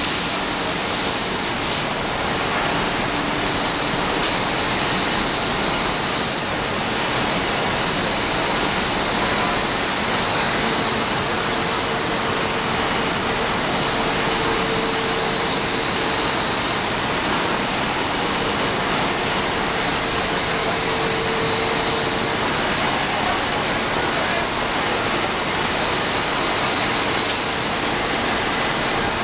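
Textile loop steamer running in operation: a steady, even rushing noise with a faint high whine over it.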